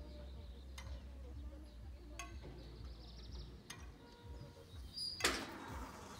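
Level-crossing barriers beginning to lift, with a short loud rush of noise about five seconds in. Before it come faint sharp clicks about every second and a half, a few high bird chirps and a steady low hum.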